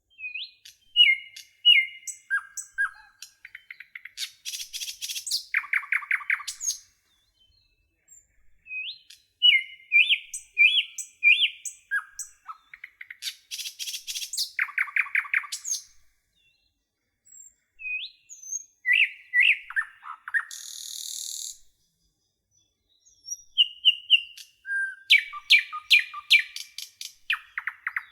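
Songbird singing in phrases of quick chirps, rising whistled notes and rapid trills, broken by short pauses where the sound drops out completely.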